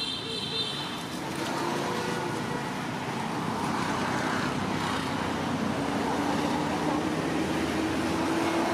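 Steady road-traffic noise, with the hum of a running vehicle engine slowly rising in pitch. There is a brief high squeak right at the start.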